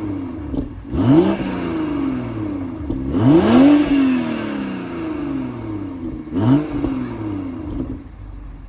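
Toyota GR Supra's engine revved three times in sport mode, each rev climbing quickly and then falling away slowly to idle, heard through the exhaust.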